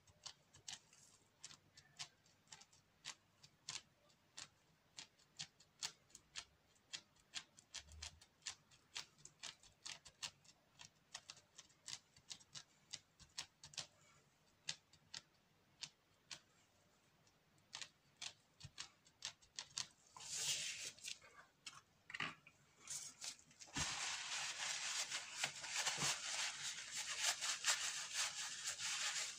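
Faint sharp clicks, a few a second and unevenly spaced, as gloved fingertips press and lift off a picture laid in tacky epoxy resin. Near the end these give way to a denser rustling hiss.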